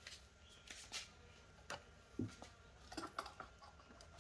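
Faint, scattered clicks and rustles of a fabric-covered car interior trim panel being handled and worked loose from its plastic clips.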